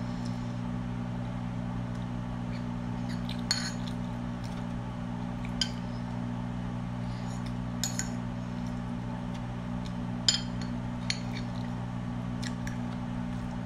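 Metal spoon clinking and scraping against a ceramic plate while eating, several sharp clinks a couple of seconds apart, over a steady low hum.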